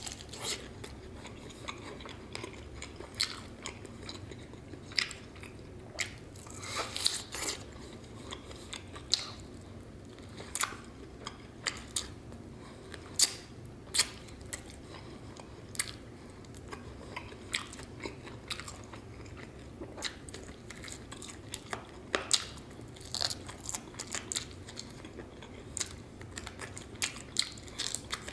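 A person eating sauced fried chicken wings close to the microphone: biting and chewing, with short sharp crunches at irregular intervals, some coming in quick clusters.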